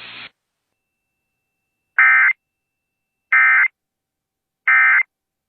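Emergency Alert System end-of-message signal: three short, identical bursts of screechy digital data tones, about a second and a half apart, marking the end of the alert.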